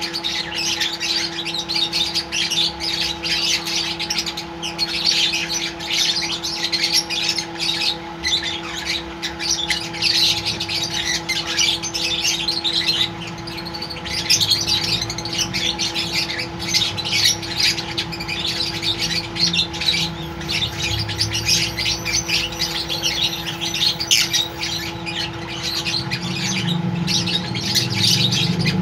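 Flock of caged lovebirds chattering, with constant overlapping shrill chirps and squawks. A steady low hum runs underneath.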